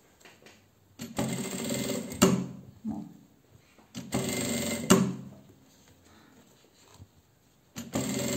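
Straight-stitch sewing machine stitching in three short runs, the first two each ending in a sharp click as it stops, with pauses between while the fabric is turned along a curved edge.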